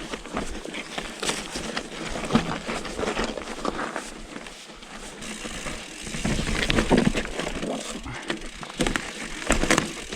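Trek Remedy 8 full-suspension mountain bike riding down rough, rocky singletrack: tyres rolling over dirt and rocks, with irregular knocks and rattles from the chain and frame.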